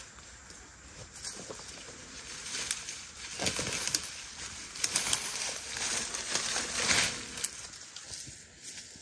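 Cassava leaves and stems rustling and crackling as the plants are handled and pushed aside. The rustling is louder through the middle of the stretch.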